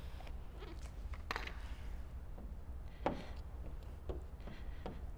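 Squeegee strokes over wet paint protection film on a car hood: several short squeaks and scrapes a second or so apart, over a steady low hum.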